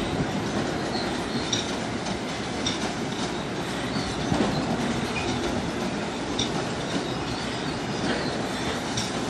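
Long Island Rail Road M7 electric train moving along the station tracks: a steady rumble of wheels on rail with brief high wheel squeals scattered throughout.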